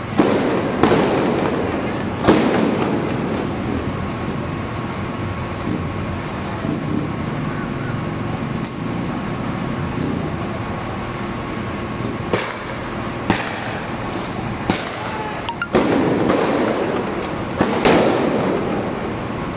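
About eight sharp explosive bangs at irregular intervals, a few near the start and the rest in the last third, echoing off a concrete overpass over a steady background rush of noise.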